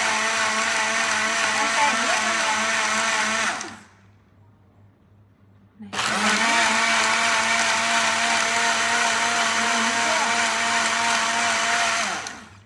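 Electric blender running, blending watermelon into juice. It cuts out about three and a half seconds in, stays off for about two seconds, then starts again and runs until it winds down near the end.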